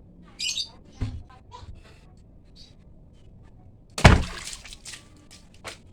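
Tools and parts being handled on a work surface: a brief rattle, a knock about a second in, a loud sharp clack with a short ring about four seconds in, and a click near the end.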